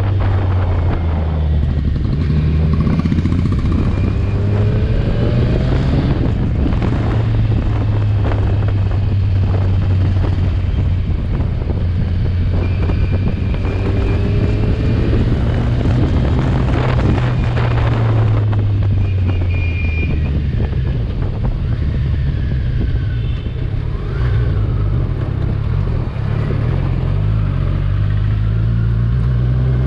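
Kawasaki Ninja 1000's inline-four engine running under way, its note mostly steady, easing off briefly about two-thirds through and rising again near the end.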